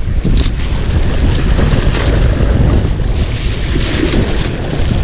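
Wind buffeting the microphone as a steady heavy rumble, with sea surf washing behind it.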